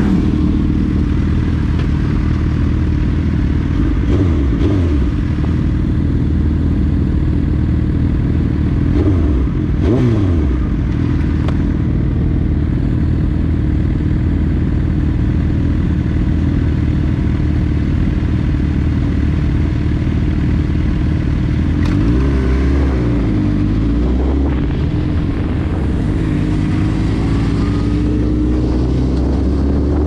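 Suzuki GSX-R1000 K8 inline-four with a decatted aftermarket twin exhaust idling at a standstill, with other sportbikes nearby briefly revving a couple of times. Near the end the engine note rises as the bikes pull away.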